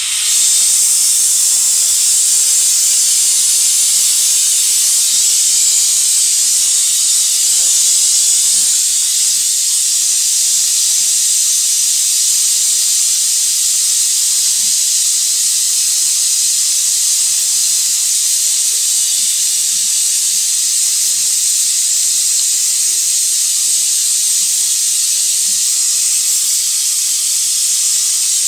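Steady, loud hiss of pressurised gas rushing out of a line or nozzle, starting suddenly and holding unchanged, during refrigeration compressor work.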